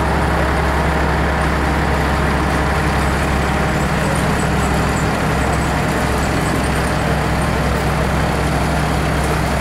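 Cummins diesel engine of a 1958 Chevrolet 3800 truck running steadily as the truck rolls slowly along at parade pace.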